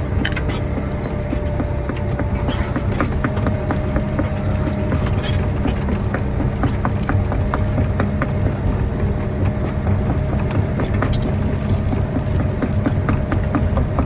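Tracked earthmoving machine's diesel engine running steadily under load, with many short clanks and rattles throughout.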